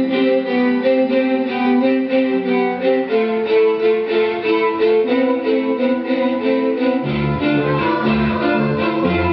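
Runway music: held notes over a steady pulse, with a deeper bass part coming in about seven seconds in.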